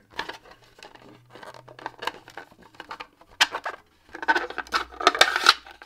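LED backlight circuit board being slid into a 3D-printed frame: irregular scraping and sharp clicks of the board against the plastic, busiest about four to five and a half seconds in.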